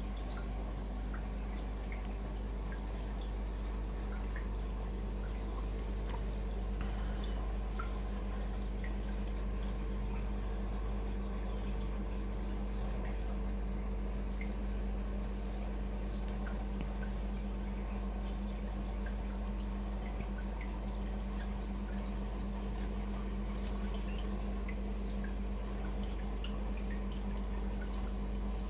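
Reef aquarium equipment running: a steady pump hum under continual trickling and dripping water.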